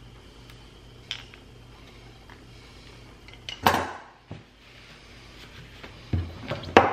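Metal hand tools and brass air-hose fittings being handled and set down on a wooden workbench: a few sharp clinks and clatters, the loudest a little past halfway and another just before the end.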